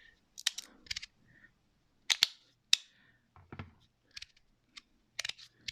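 Magnetic fidget slider clicking as its plates snap into place, about ten sharp clicks at irregular intervals.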